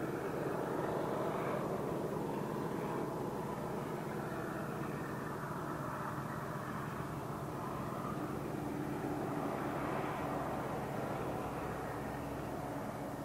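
MLW-built diesel locomotive hauling a loaded oil train, its engine giving a steady drone.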